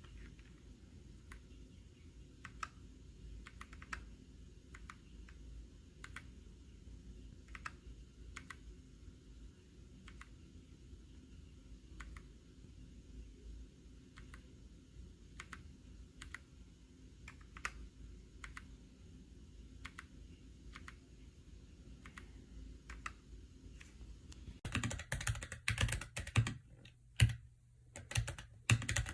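Keys of a Keychron K3 Version 2 low-profile mechanical keyboard being pressed one at a time with soft clicks. Near the end the key presses turn into a louder, faster run of typing, briefly pausing before going on.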